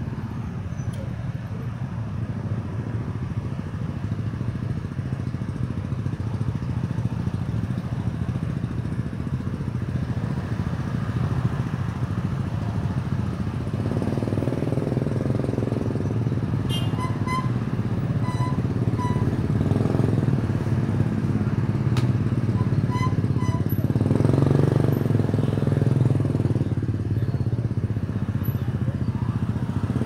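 Street traffic heard from a moving bicycle: a continuous hum of motorcycle and car engines and tyres, swelling in the second half as vehicles pass close, with a few short series of high pips in the middle.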